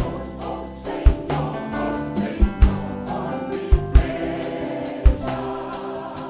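Choir singing a gospel song with instrumental accompaniment, over a beat of low thumps that fall about once a second, sometimes in quick pairs.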